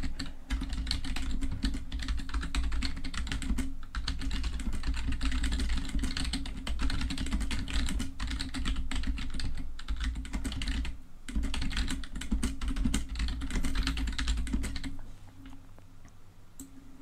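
Typing on a computer keyboard: a fast, continuous run of key clicks with short breaks about four and ten seconds in, dying away about two seconds before the end.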